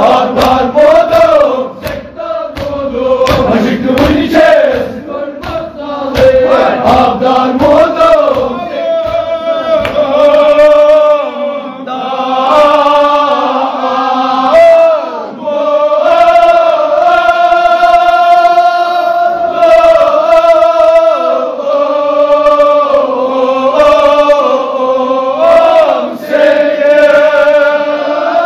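Group of men chanting a Kashmiri marsiya, a Shia elegy, together in long drawn-out sung lines. Sharp rhythmic strikes beat under the voices for the first several seconds.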